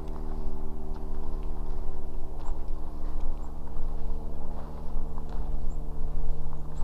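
Slow footsteps on the frozen surface of a lake, about one step a second, over a steady low hum and rumble.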